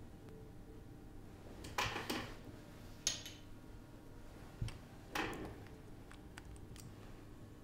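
Quiet handling noises: a few brief rustles about two and five seconds in, and some light clicks in between, as tweezers and a small lash-glue bottle are handled.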